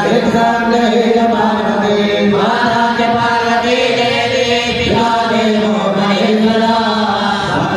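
Hindu devotional chanting to Shiva: voices chanting in a steady, sustained melody with long held notes.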